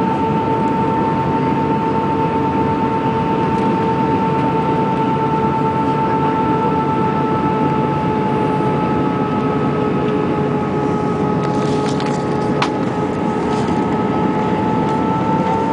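Airbus A319 airliner heard from inside in flight: a steady rush of engine and airflow noise with a constant whining tone over it, the pitch sagging slightly through the middle and creeping back up near the end.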